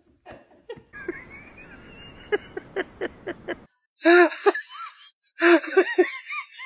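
High-pitched laughter in two loud bursts of short pulses in the second half, after a few seconds of faint noise with a run of sharp clicks.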